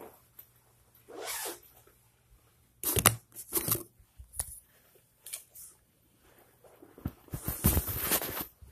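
Rustling, scraping and bumping of a handheld phone moving against clothing, with a short burst of knocks about three seconds in and a longer stretch of rustling near the end.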